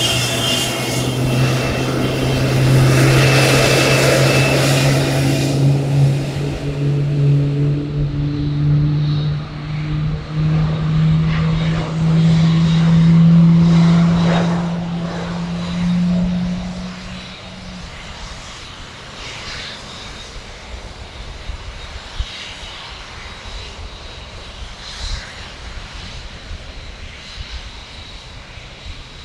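Boeing 747-8F freighter's four turbofan engines at takeoff thrust: a loud jet rumble carrying a low drone that slowly rises in pitch. About seventeen seconds in, the drone stops and the sound falls to a fainter, distant rumble as the jet climbs away.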